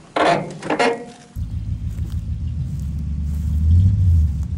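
1986 Oldsmobile Cutlass Supreme's engine idling, a steady low rumble heard from behind the car, swelling slightly near the end.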